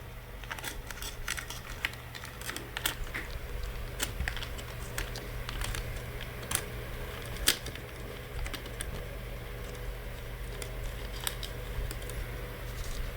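Irregular small clicks and taps, a few of them sharper, from hands and small tools handling a laptop's internal parts. A steady low hum runs underneath.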